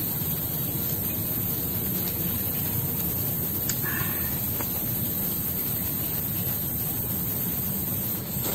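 Steady hiss of the bamboo forest's background ambience, with a few faint ticks and a brief chirp about four seconds in.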